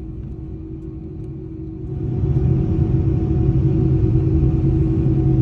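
Jet airliner engines heard from inside the cabin: a steady hum over a low rumble. About two seconds in, the engine noise swells and grows markedly louder as thrust increases, then holds.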